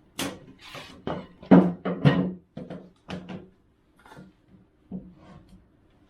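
A run of irregular knocks and thunks, about a dozen, each short with a little ringing.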